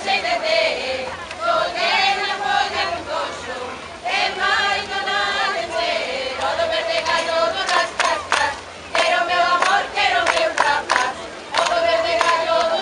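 A group of women singing a Galician folk song together, with sharp tambourine (pandeireta) strokes beating time, heavier from about halfway through.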